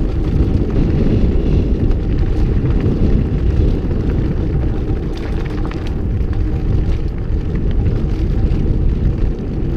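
Wind buffeting the microphone of a camera carried on a mountain bike ride: a loud, steady rumble, with a few faint clicks about halfway through.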